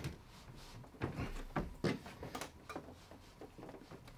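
A Samsung Neo QLED TV being pressed down onto its Slim Fit wall-mount bracket, giving a series of short knocks and clunks as its mounting bars are pushed to slot down into the wall brackets.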